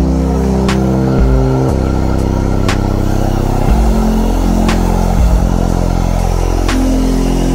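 Background electronic music: deep synth bass and held chords that change every second or so, with a sharp beat about every two seconds.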